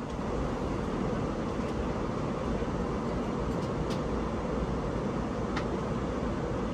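Steady in-flight cabin noise of an Airbus A380: an even rushing hum of airflow and engines. Two faint ticks come about four and five and a half seconds in.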